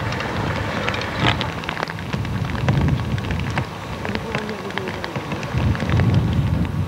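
Light rain pattering in scattered clicks over a low, swelling wind rumble on the camcorder microphone.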